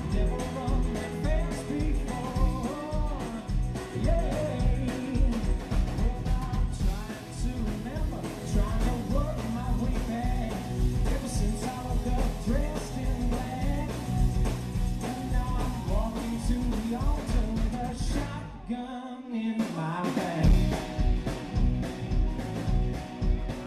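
Live band playing a rock-and-roll song, with a lead vocal over a steady bass and drum beat.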